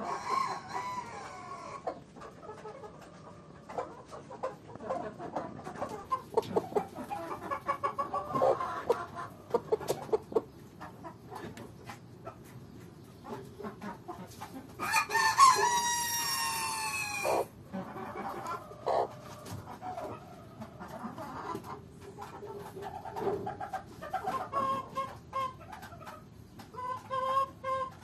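Chickens clucking on and off, with a rooster crowing once about halfway through: a single crow of about two and a half seconds, the loudest sound.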